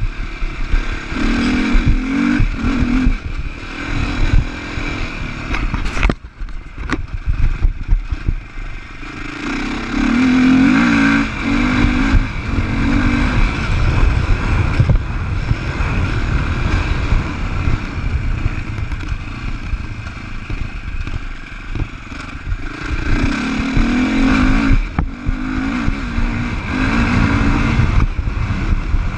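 2015 Sherco 450 SEF-R's single-cylinder four-stroke engine pulling under throttle and easing off in turns, dropping back about six seconds in and picking up again around ten seconds in. Wind rumble on the camera microphone and scattered knocks from the bike over bumpy ground run underneath.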